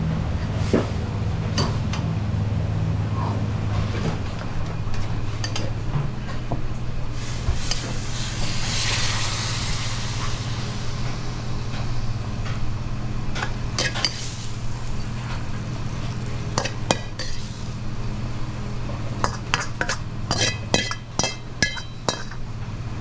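A metal ladle clinks and scrapes against a steel wok as champon broth is stirred and poured into a bowl, over a steady low kitchen hum. A hiss swells about nine seconds in. Near the end comes a quick run of ringing metal taps as the wok is scraped out.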